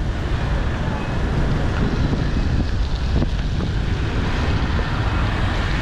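Steady wind rush on the microphone of a moving motorbike, with the low rumble of traffic underneath.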